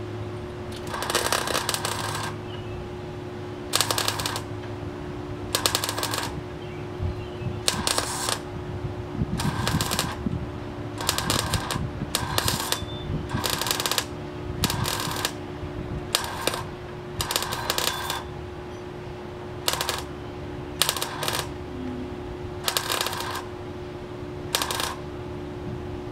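Electric arc welder stitch-welding sheet steel in a car's engine bay: about fifteen short bursts of arc crackle, one roughly every second and a half, each stopping sharply, over a steady hum.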